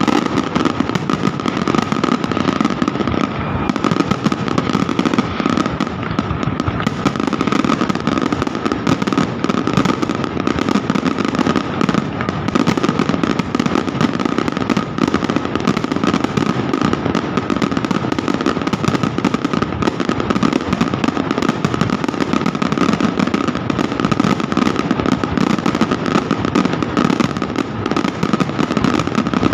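Fireworks display: a dense, unbroken barrage of bangs and crackles, with a steady high tone underneath.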